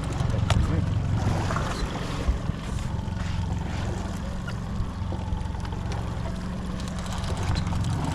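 Boat motor running steadily while trolling, a low even hum with water and wind noise over it and a few light knocks.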